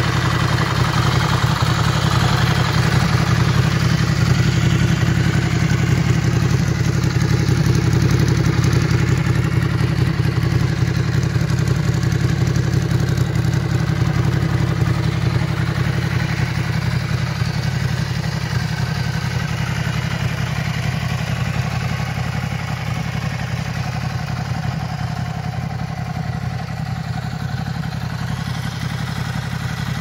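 2016 Ducati Scrambler's air-cooled L-twin engine idling steadily through an aftermarket DG silencer, its stock catalytic converter removed.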